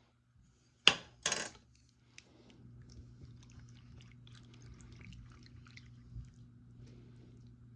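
Two sharp clatters, like dishes or containers knocked together, about a second in. Then a steady low hum sets in with faint crackling and rustling over it.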